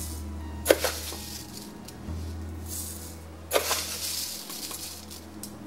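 Two short scrapes of a plastic spoon scooping tea powder from a plastic tub, about a second in and again about three and a half seconds in, over faint background music.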